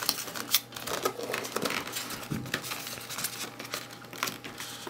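Cardboard box and white polystyrene packaging being handled: scrapes, rubbing and light knocks as the foam insert is lifted out of the box.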